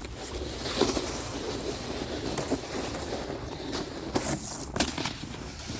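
Footsteps crunching and scraping through snow, a few irregular strokes over a steady rushing noise.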